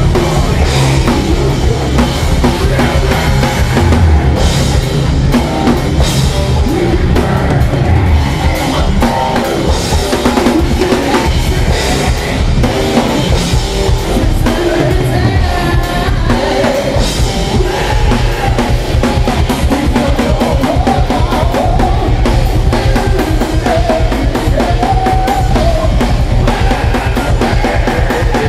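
Live rock band playing loud and without a break: distorted electric guitar over a hard-hit drum kit.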